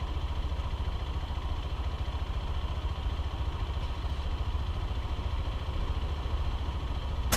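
Honda CBF125R's single-cylinder engine idling steadily, with a fast low pulse.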